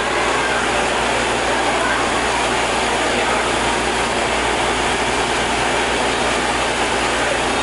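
Engine-driven air compressor for borewell cleaning running steadily, a dense, unbroken machine noise at a constant level.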